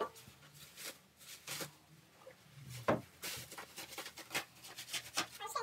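Plastic bubble-wrap packaging rustling and crinkling in short bursts as it is pulled off a new scooter, with a sharper knock about three seconds in.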